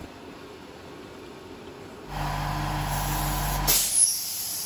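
Small milling machine drilling into an aluminium block. About halfway through, a much louder steady hum with hiss sets in, and two sharp clicks come near the end.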